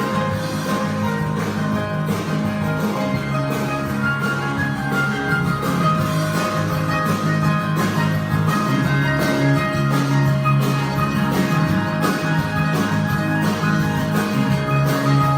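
Guitar-led music with plucked strings and a steady beat.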